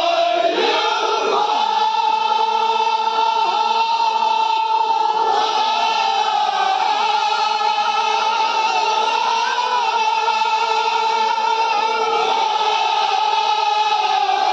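Crowd of men chanting together in unison on long, drawn-out held notes.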